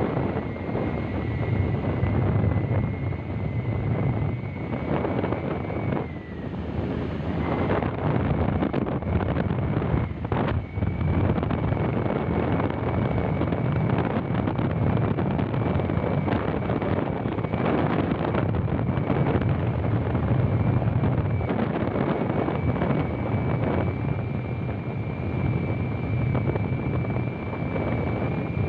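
Wind buffeting the microphone on a moving motorbike, with the engine and tyre noise underneath. A thin steady high whine runs through it, breaking off about six seconds in and coming back about five seconds later.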